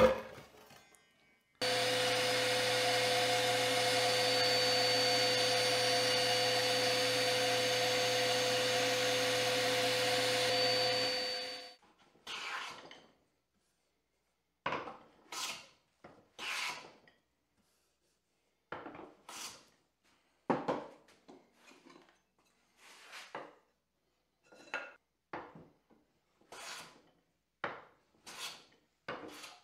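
A power tool runs steadily at one pitch for about ten seconds, then winds down and stops. After it, a hand plane is pushed along a wooden board in a series of short separate strokes, roughly one or two a second, with short pauses between them.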